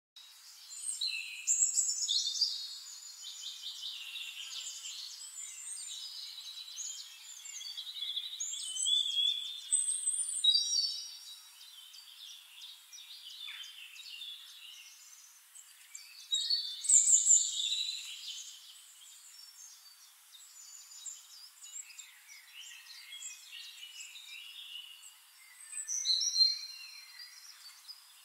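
Several songbirds singing, a mix of quick chirps, trills and whistles. The song swells loudest about two, nine to ten, seventeen and twenty-six seconds in.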